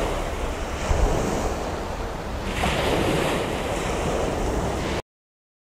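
Sea surf washing on the shore, with wind buffeting the microphone in a steady rush of noise. It cuts off abruptly to total silence about five seconds in.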